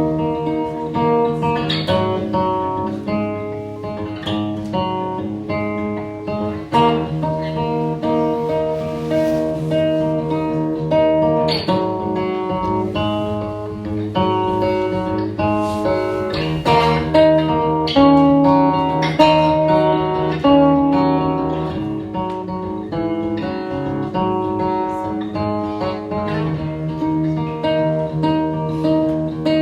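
Guitar intro to a song: a guitar picked and strummed in a steady rhythm, sustained chords ringing between strokes.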